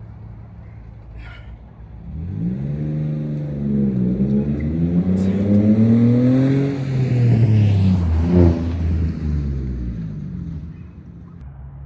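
A motor vehicle's engine accelerating past: its pitch climbs for several seconds with a short dip about four seconds in, is loudest near the end of the climb, then drops and fades out, over a steady low hum.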